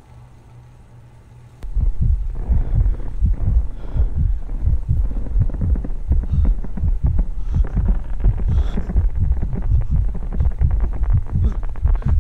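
Soundtrack effect of fast, deep throbbing thumps that cut in suddenly about a second and a half in over a faint low hum, and keep going.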